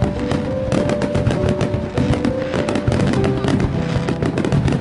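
Fireworks display: many shells bursting in quick succession, with dense bangs and crackling. A melody plays alongside.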